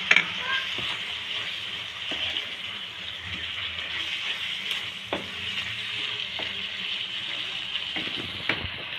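Chicken masala sizzling in a frying pan as it is stirred with a spoon: a steady frying hiss, with a few light clicks of the spoon against the pan.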